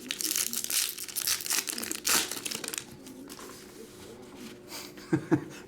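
Crinkling and rustling of trading-card pack wrappers being handled and torn open, with a few sharper crackles, busiest in the first couple of seconds.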